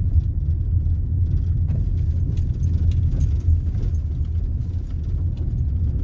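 A car driving over a rough, bumpy road, with a steady low rumble and light scattered rattling and jangling over it.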